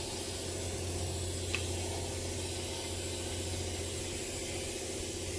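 Steady low electrical or machine hum with an even hiss, and a single faint click about a second and a half in.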